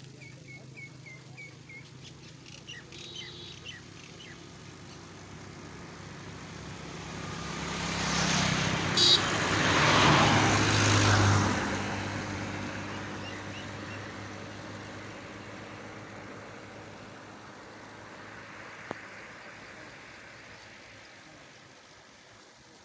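A road vehicle passes by, its tyre and engine noise swelling for several seconds and fading slowly, with a brief high squeal at its loudest. Under it runs a steady low hum, and a few bird chirps come near the start.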